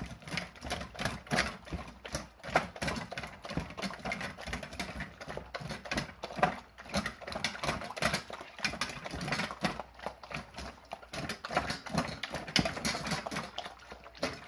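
Two husky puppies eating moistened kibble from stainless steel bowls. It comes as a dense, irregular run of quick clicks and smacks, starting suddenly at the beginning.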